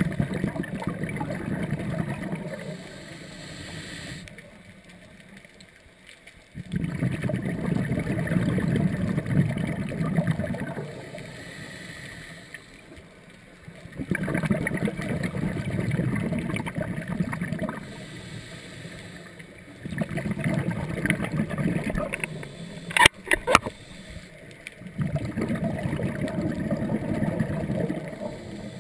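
Scuba diver's exhaled breath bubbling out of the regulator in long bursts about every six seconds, with quieter inhales between. A few sharp clicks come about three-quarters of the way through.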